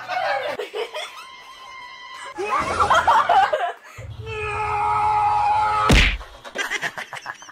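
A burst of loud voices a few seconds in, then steady tones over a low hum, and about six seconds in a single sharp smack as a kitten swipes with its paw on a coffee table.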